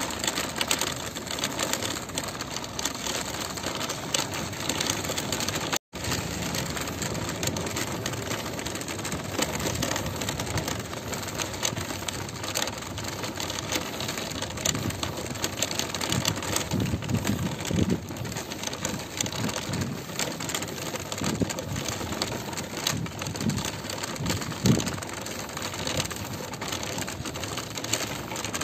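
A shopping cart rattling steadily as it is pushed across asphalt, a continuous clatter of small clicks with a few heavier bumps in the second half.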